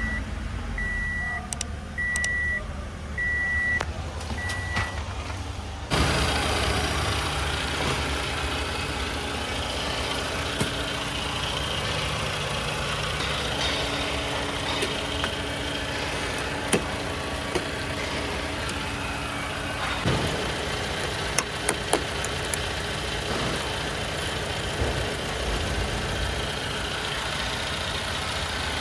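A car's warning chime beeps five times, about once a second. Then, about six seconds in, the Toyota Camry's 2AR-FE 2.5-litre four-cylinder comes in suddenly and runs steadily with its new water pump fitted.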